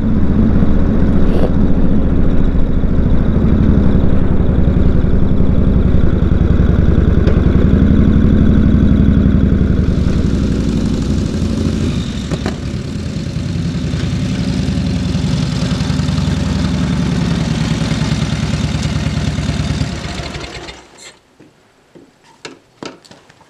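1942 Harley-Davidson WLA's 45-cubic-inch flathead V-twin running while ridden; about ten seconds in the sound changes as the bike rides up and slows, and about twenty seconds in the engine cuts off, leaving a few light clicks.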